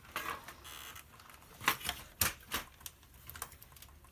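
Sharp clicks and knocks as wires are pulled out of a device being taken apart. Three louder strikes come in the middle, after a short scraping rustle near the start.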